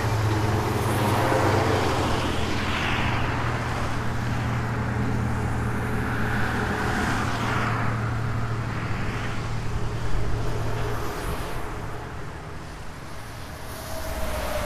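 Roadside traffic: a stopped truck's engine running at a steady low hum, with vehicles passing several times. The hum stops about eleven seconds in.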